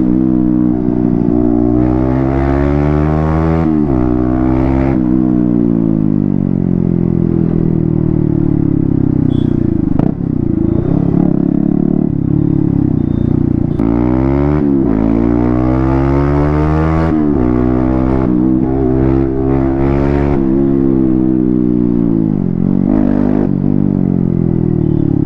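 Yamaha MT-15's 155 cc single-cylinder engine running with the silencer removed, open exhaust, as the bike is ridden. The engine pitch climbs and then drops several times as it accelerates and shifts gear.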